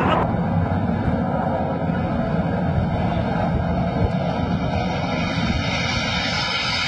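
Steady rumbling noise, then the hiss of a fighter jet's engines growing louder over the last two seconds as the jet comes in low over the carrier deck.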